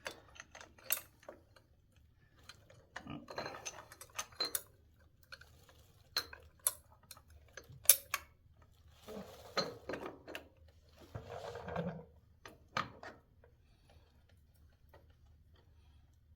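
Metal motorcycle compensator parts clinking and clacking as they are worked by hand onto the crankshaft end: scattered sharp clicks and knocks with a little scraping, dying away about three seconds before the end.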